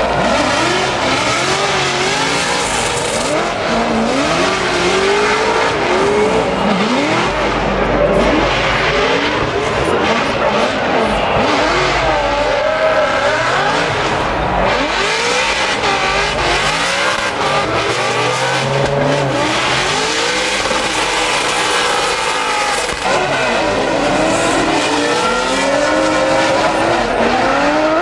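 Competition drift cars at full throttle: engine pitch rising and falling again and again, over the steady noise of tires squealing and sliding.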